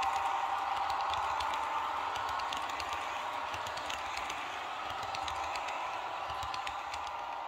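Model train coaches rolling past on the track: a steady running hum with many rapid clicks of the wheels over the rail joints, slowly fading as the train moves away.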